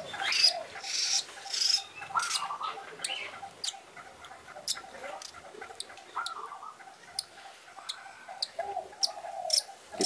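Budgerigar chick giving short, soft chirping calls at irregular intervals while it is held in the hand.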